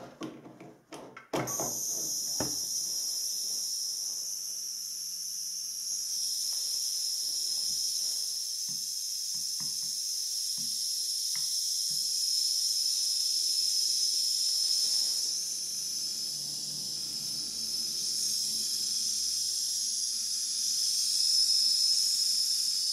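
80 W LED floodlight driver (mains switched-mode power supply) switched on with a click about a second in, then giving off a steady high-pitched whine with hiss: the driver is noisy, and the owner traces the noise to one component on its board. Faint taps from a screwdriver probing the board now and then.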